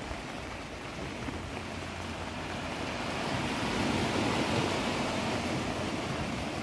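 Steady wash of surf and wind on the microphone, swelling slightly midway.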